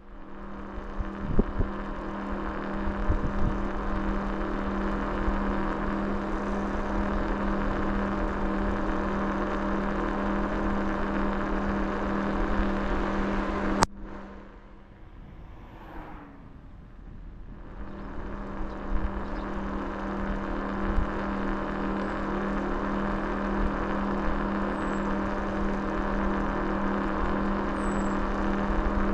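A motor vehicle's engine running with a steady hum. About 14 seconds in, the sound cuts off abruptly with a click, then builds back up over the next four seconds.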